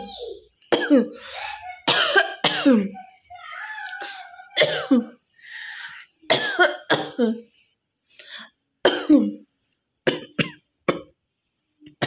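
A woman coughing over and over on purpose: about a dozen short, harsh coughs, some in quick pairs and triplets with short pauses between, and fainter throat sounds in the gaps.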